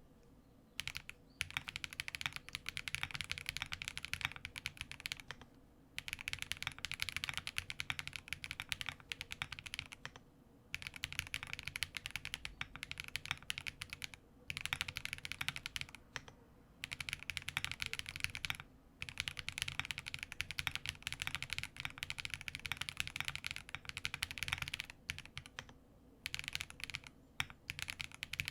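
Link65 mechanical keyboard with lubed Green Jacket linear switches, PBT keycaps, an aluminium plate and plate and case foam, typed on quickly. The keystrokes come in runs of a few seconds, broken by about half a dozen short pauses.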